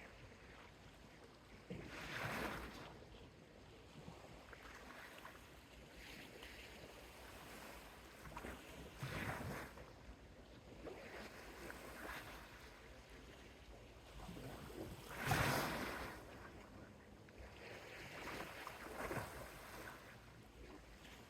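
Soft sea waves washing onto a small beach: four gentle rushes of water a few seconds apart, the loudest about fifteen seconds in, over a faint steady hiss of the sea.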